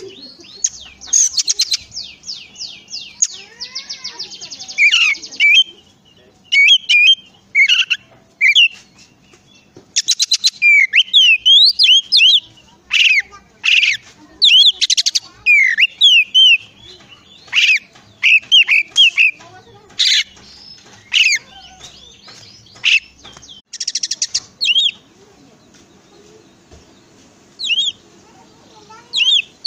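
Oriental magpie-robin (kacer) singing a varied song of rapid trills, whistled slurred notes and chattering phrases with short gaps. It thins to a few scattered notes near the end.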